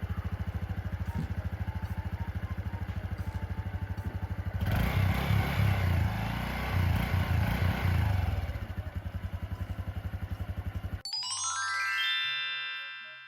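Honda Super Cub 110's small single-cylinder four-stroke engine running with an even idle beat, revved up for a few seconds about a third of the way in, then settling back to idle. Near the end it cuts off abruptly and a rising run of chime-like music notes follows.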